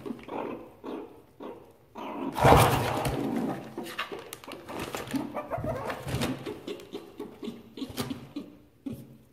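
Meerkats making short, low, repeated calls while they rummage in crinkling plastic wrapping in a cardboard box. About two and a half seconds in there is a louder rustle of plastic.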